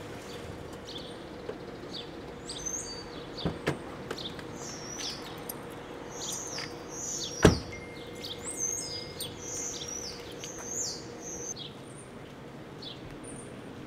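Small birds chirping and twittering throughout, with a single loud thump of a car door shutting about seven and a half seconds in, and a couple of softer clicks a few seconds before it.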